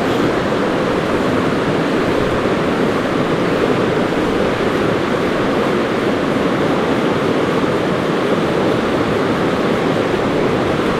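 Mountain stream rushing: a loud, steady wash of flowing water that does not change.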